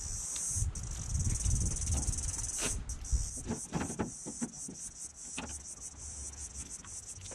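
Insects chirping in a steady high trill, with a few clicks and clinks of hand tools being handled and a tool roll set down on a car's bonnet.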